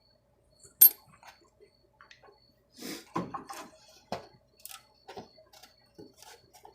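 Scattered small clicks and knocks of tools and metal parts being handled on a workbench, with one sharp click about a second in and a busier run of knocks around the middle.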